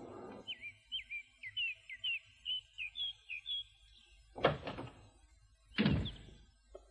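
Cartoon sound effects: a quick run of high bird chirps, then two loud door thuds about a second and a half apart, and near the end the first light footsteps on a wooden floor.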